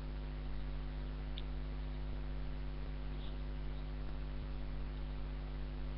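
Steady electrical mains hum, a stack of even tones under a faint hiss, with a couple of faint clicks.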